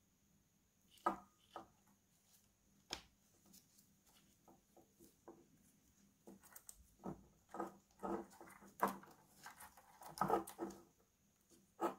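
Plastic wiring connectors and cables of an electric scooter's controller being handled and plugged together by gloved hands: a few sharp clicks with small knocks and rustling between them, busiest in the second half.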